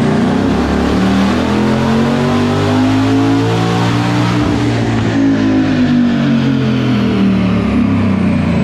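Twin-turbocharged Ford Mustang GT's 5.0 Coyote V8 making a wide-open-throttle pull on a chassis dyno. The revs climb for about four seconds, then fall away as it lets off, with a high whine dropping in pitch near the end.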